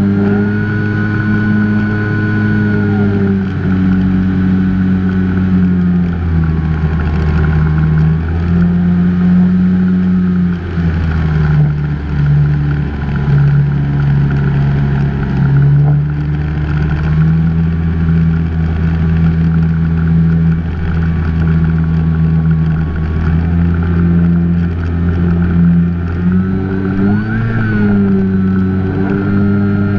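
Onboard sound of an FPV model plane's electric motor and propeller: a steady hum whose pitch steps up and down every few seconds as the throttle changes, with a quick rise and fall about 27 seconds in, over rushing air.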